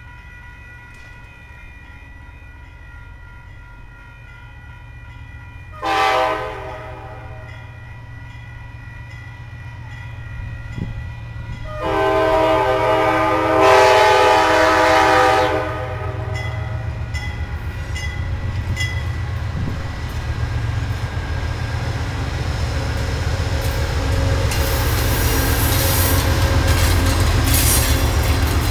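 Amtrak California diesel locomotive sounding its horn on approach: a short blast about six seconds in, then a long blast of about four seconds. Its engine rumble and the rail noise grow as it nears, with wheels clattering over the track near the end.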